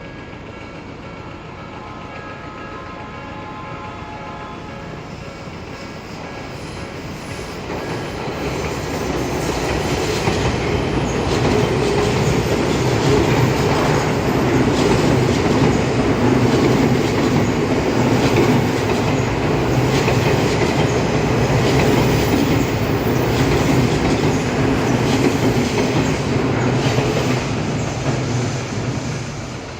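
An Odakyu Line electric commuter train passes over a level crossing, with the crossing's warning bell ringing. The train builds up from about six seconds in, runs loud with its wheels clattering over the rail joints, and fades away near the end.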